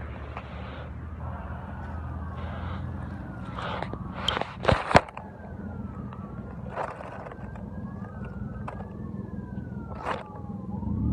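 Emergency-vehicle siren wailing, two slow rising-and-falling tones crossing each other, over the steady low hum of an idling engine. Two sharp knocks a little under halfway through are the loudest sounds.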